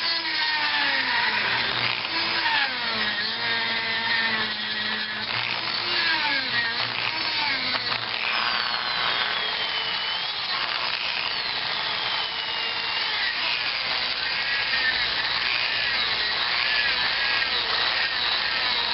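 Small handheld electric rotary tool cutting into the soft potting compound of a CDI unit. Its motor whine keeps dropping and recovering in pitch as the bit bites and skips around.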